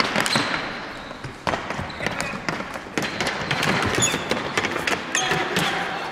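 Ball hockey game play: about half a dozen sharp knocks of sticks and ball striking, echoing in the arena, with players calling out.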